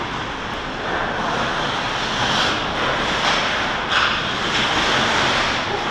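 Hockey skates scraping and carving on rink ice: a steady hiss with several louder scrapes, about two, four and four and a half seconds in.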